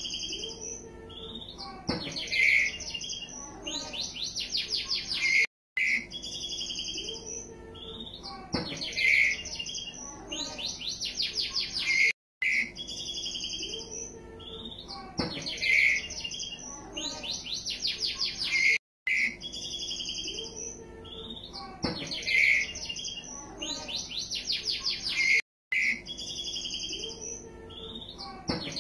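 Two-week-old white-rumped shama chick calling: bursts of rapid, high chirps. The same phrase repeats about every six and a half seconds, with a brief dropout between repeats.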